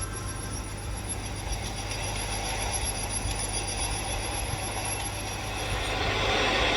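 Metal lathe running on a roughing cut: a steady machine hum with a cutting hiss that grows louder near the end, as a thin high whine drops out.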